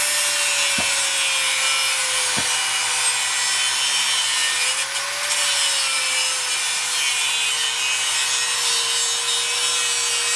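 DeWalt angle grinder with an abrasive cut-off wheel cutting through a galvanized steel post pipe: a steady, loud grinding hiss over a constant motor whine. The whine sags slightly, then rises briefly about five seconds in.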